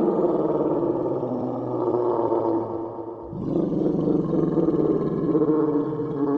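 Made-up Pachycephalosaurus sound effect: a long, deep, pitched creature call that fades about three seconds in, followed at once by a second long call.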